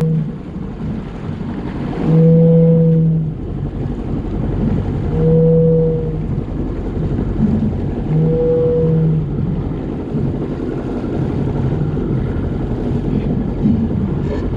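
A foghorn sounds three long, low, steady blasts about three seconds apart, over the low running of a jet ski's engine at idle and the slap of water.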